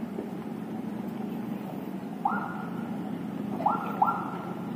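Steady rumble of a walking crowd and slow traffic, with three short electronic siren whoops that each sweep upward and hold, one about halfway through and two close together near the end.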